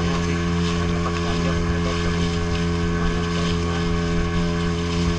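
Outrigger fishing boat's engine running at a steady cruising speed, one unchanging note, with water and wind rushing past the hull.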